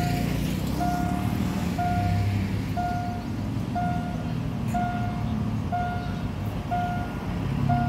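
An electronic warning beep sounding once a second, evenly, over the low rumble of a diesel locomotive hauling a train of tank cars.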